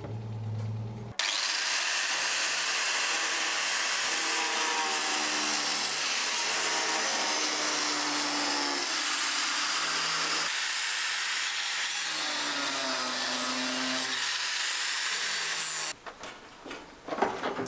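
A power tool running continuously, with its pitch shifting in steps as the load changes; it starts abruptly about a second in and cuts off abruptly near the end.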